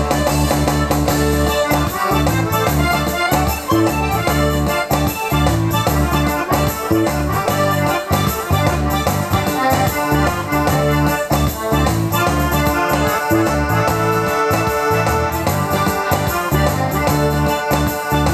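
Electronic keyboard playing an instrumental break in a bluesy R&B song, over a steady bass line and beat.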